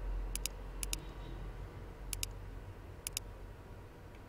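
Computer mouse clicking four times, each a close pair of sharp clicks, over a low steady hum.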